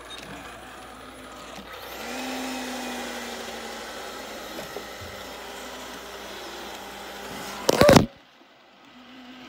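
iLife A5 Pro robot vacuum running across a hardwood floor, a steady whir of its suction motor and brushes that grows louder about two seconds in as it gets going. Near the end comes a loud, brief bump.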